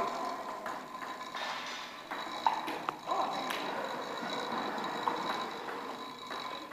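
Keiser indoor cycling bike's pedals and flywheel turning, with a thin steady whine and a few sharp clicks around the middle.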